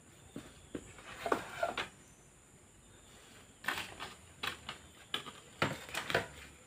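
Bamboo poles knocking and clattering against each other and the bamboo frame as they are handled: a cluster of knocks about a second in, then another run of knocks from just before four seconds to about six seconds.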